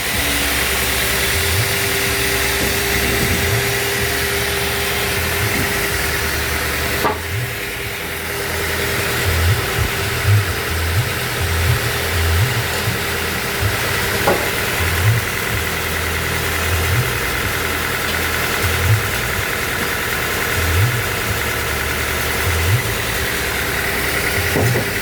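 Band sawmill machinery running steadily, with a constant hum and a higher whine, irregular low thumps, and a couple of sharp knocks.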